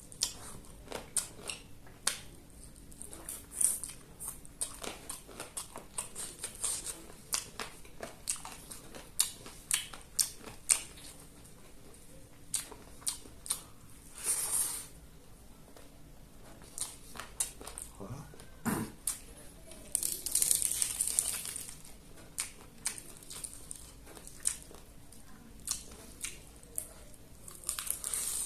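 Close-miked eating: many quick crunches, smacks and tearing bites as chicken is chewed, with two longer noisy stretches, one about halfway and one around twenty seconds in.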